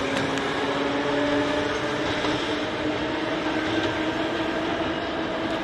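Meitetsu red electric train running, its traction motors giving a steady whine that climbs slowly in pitch as the train gathers speed, over steady running noise.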